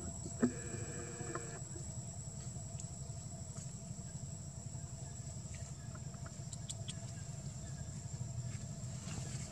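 Outdoor ambience with a steady low rumble and a steady high whine. About half a second in there is a sharp click, then a single pitched animal call lasting about a second.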